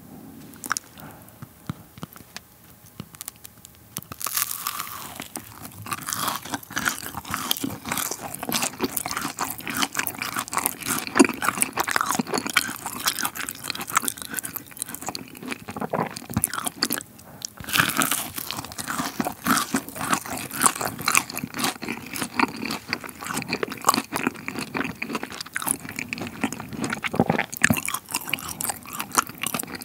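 Close-miked biting and chewing of a macaron with a caramelized sugar top. After a quiet first few seconds, its crisp shell and sugar crust crunch and crackle in quick, close strokes, then the chewing carries on.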